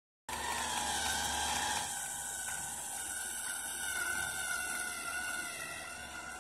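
Small yellow plastic DC gear motors of a wheeled robot running, a steady whirring whine whose pitch wavers slightly.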